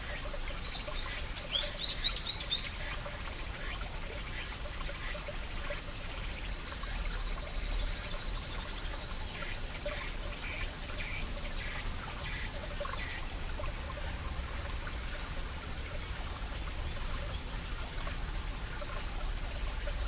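Small mountain stream trickling over rocks, a steady water sound with scattered drips. A bird gives a quick run of short rising chirps about a second in, and cicadas buzz in the background through the middle.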